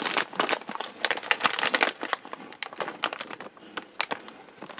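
Plastic snack wrapper crinkling as it is handled, dense for the first couple of seconds, then a few scattered crackles.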